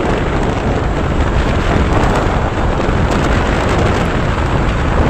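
Wind buffeting the microphone of a phone mounted on a moving Bajaj Pulsar RS200 motorcycle: a loud, steady rush with a deep rumble, and no clear engine note standing out.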